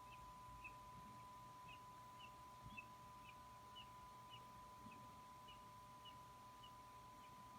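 Faint, short high-pitched chirps repeated about twice a second, typical of a raptor chick's begging calls at the nest, over a steady high whine.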